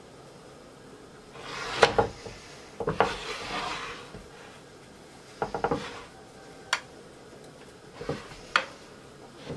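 Metal offset spatula clinking and scraping against the sides of a glass baking dish while spreading caramel sauce: several sharp clicks at irregular intervals, with short scrapes between them.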